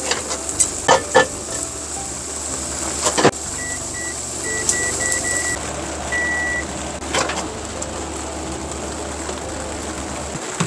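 Microwave oven being set: the door latches shut with sharp clicks, then a row of short keypad beeps and one longer beep as it starts, with a steady low hum underneath. Another click comes about seven seconds in.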